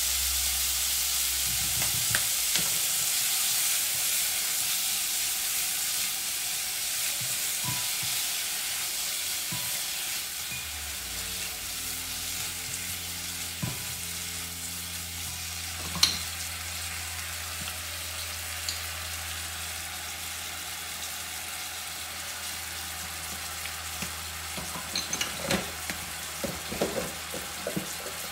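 Chicken pieces sizzling in a wok as they are stir-fried with a wooden spatula, a steady hiss. A single sharp knock comes about halfway through, and a run of light taps and knocks near the end.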